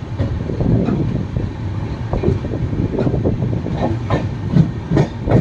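Train running at speed: a steady rumble with wheels clattering over rail joints, a few sharper clacks near the end.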